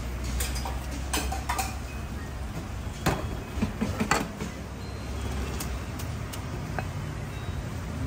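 Scattered clinks and knocks of a long-handled noodle strainer and bowl against a stainless steel noodle pot while egg noodles are cooked and served, over a steady low hum.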